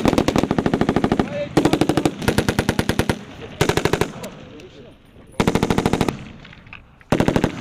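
Belt-fed machine guns firing in short bursts of rapid shots: five bursts, each under two seconds, with brief pauses between, the first already under way and the last cut off at the end.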